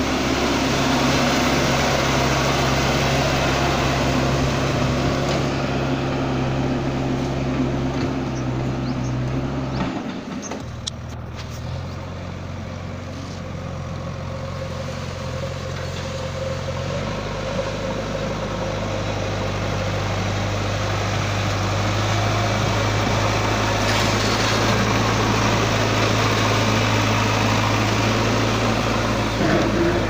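JCB 3DX backhoe loader's diesel engine running steadily while it works. About ten seconds in its note changes and it goes quieter, then from around seventeen seconds it runs louder and more evenly again.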